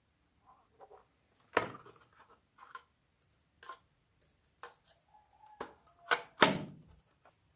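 Slime being squeezed and poked by hand: irregular sticky clicks and crackling pops, the loudest two near the end.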